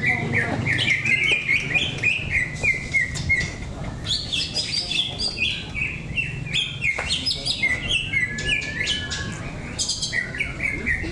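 Caged green leafbirds (cucak ijo) giving contest song: a fast, unbroken run of short whistled and chirped notes that jump up and down in pitch.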